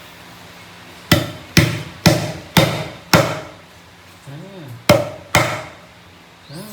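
Seven sharp knocks of a cleaver chopping on a cutting board: five about half a second apart, then a pause and two more. A brief hum rises and falls in the pause.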